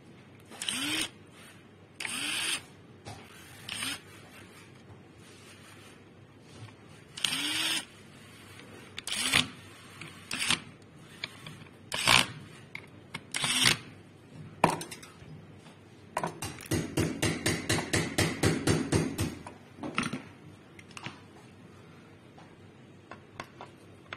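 Handheld powered screwdriver driving small screws in a string of short runs, each starting with a rising whine as the motor spins up. About 16 seconds in comes a quick even clicking lasting about three seconds, the loudest sound here.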